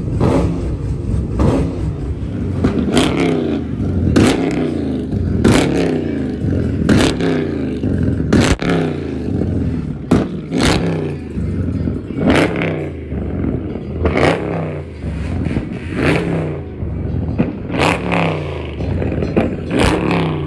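Dodge Charger's engine revved again and again, each rev ending in a sharp exhaust crack as flames shoot from the tailpipes, one crack every one and a half to two seconds.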